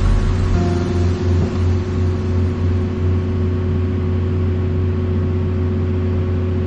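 Engine of a heavy car-wrecking machine running steadily, a low, even drone with no impacts.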